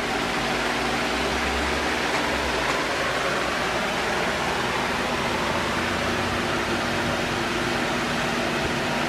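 Steady, even rushing noise with a faint steady hum underneath, unchanging throughout.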